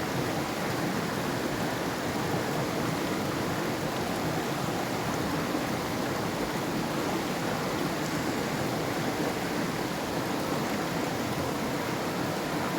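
A river rushing and burbling steadily over rocks, an even, unbroken wash of water noise.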